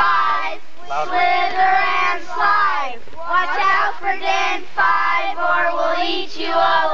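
A group of children singing together in short held phrases, with brief breaks between them.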